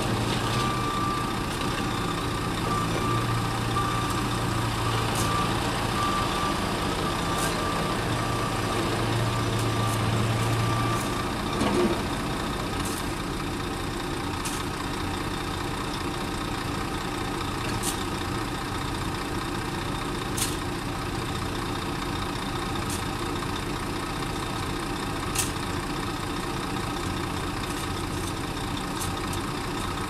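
Heavy diesel machinery running steadily, a truck and excavator engine hum, with a reversing alarm beeping for the first eleven seconds or so. After that the engine note drops to a lower, quieter running, with a few short high clicks here and there.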